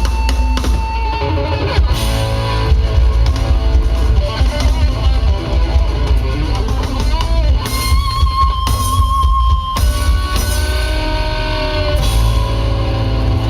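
Loud rock music: guitar playing held, wavering notes over drums and heavy bass.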